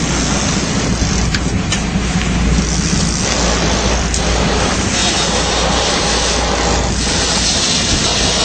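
Sport-fishing boat under way: a steady engine drone with a loud rushing noise of wind and water over it.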